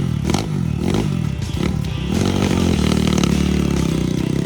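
Motorbike engine revving up and down over and over, then held at high revs from about two seconds in. Clattering knocks sound during the first second or so.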